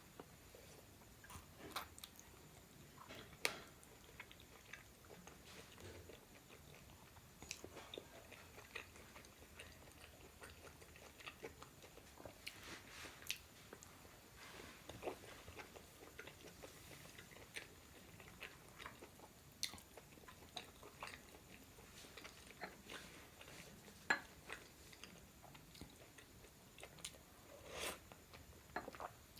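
Faint close-up eating sounds: chewing and biting pork momo dumplings, with scattered wet mouth clicks and smacks and a couple of sharper clicks.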